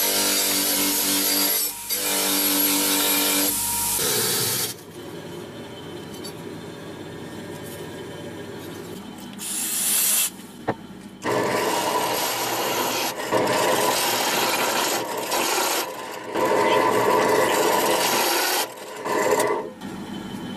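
Abrasive scraping and rubbing on the rusty steel of an old cleaver during rust removal, in several long loud stretches. For the first four seconds it comes with a steady humming whir.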